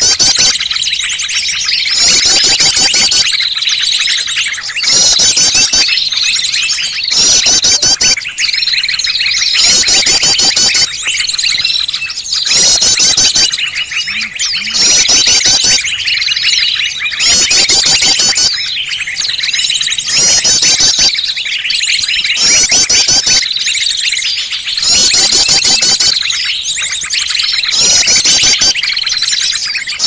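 Bird-lure recording: a dense mix of small songbird calls and chirps, with a bright chirping phrase repeating about every two seconds over a steady high tone.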